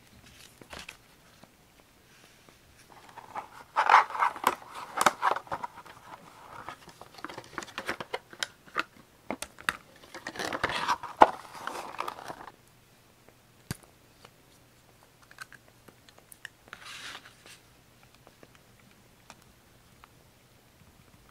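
Paper being handled close to the microphone: a run of crisp rustling and crinkling for about nine seconds, then a few light taps and one short rustle.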